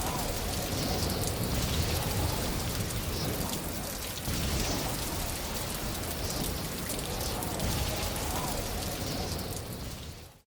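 Steady patter of rain or splashing water, with a low rumble under it, fading out quickly near the end.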